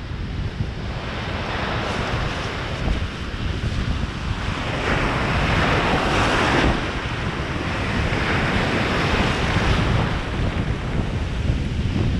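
Sea surf breaking and washing up the shore in three surges, the loudest about halfway through, with wind rumbling on the microphone throughout.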